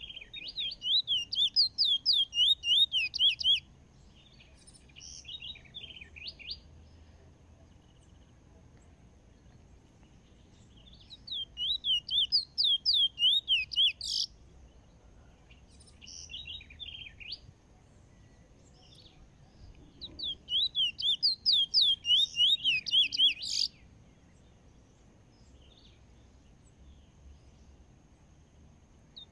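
Caged bullfinch singing: three loud bursts of rapid, repeated trilled notes, each a few seconds long, with shorter scraps of song between them.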